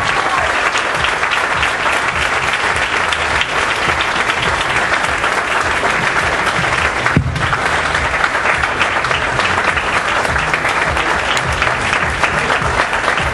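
A roomful of people applauding, a steady dense clapping that runs on without a break, with a single thump about seven seconds in.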